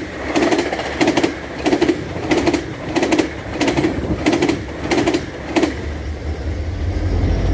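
Bilevel passenger coaches passing at speed, their wheels clicking over rail joints in a steady clickety-clack, about one group of clicks every two-thirds of a second. The clicking stops about six seconds in as the last car clears, and a low rumble remains.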